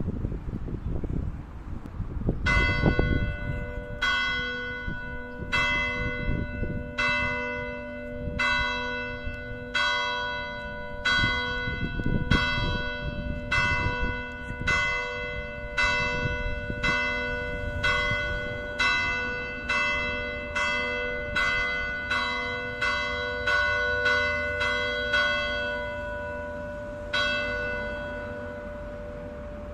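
A single church bell is struck over and over, ringing for mass. The strikes start slowly, about one every second and a half, then speed up to roughly one every two-thirds of a second. After a short pause comes a last strike, and each strike's ring hangs on.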